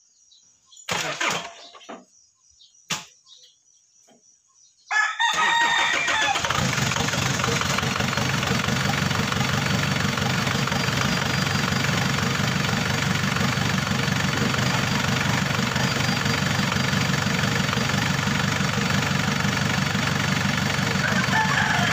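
Two short knocks, then about five seconds in the Isuzu Trooper's 4JX1 diesel engine is started and keeps going with a loud, steady run. This engine is slow to start even when warm.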